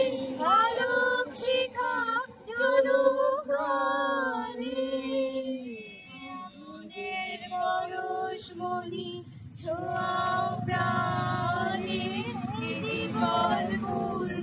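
A small group of protesters singing together without instruments, women's voices leading, with long held notes. The singing grows softer for a few seconds in the middle, then picks up again.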